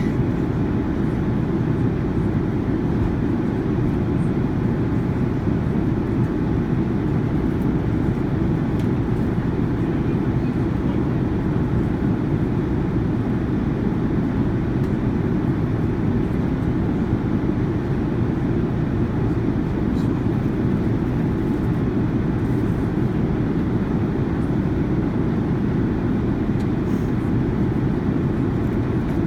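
Cabin noise aboard a Boeing 787-9 Dreamliner: a steady, even low rumble of engine and airflow noise that does not change.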